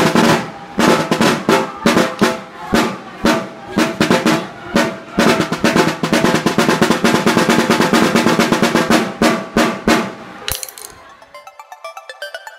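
Drumsticks playing rolls and quick strokes on a drum fitted with a new mylar head, which rings with a steady tone: the repaired head being tried out. The drumming stops about ten seconds in, and background music comes in.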